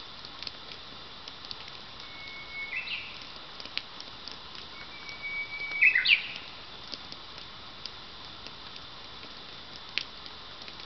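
Japanese bush warbler singing its "hō-hokekyo" song twice, each a long held whistle followed by a quick rising-and-falling flourish, the second song louder. Faint scattered ticks and one sharper click near the end.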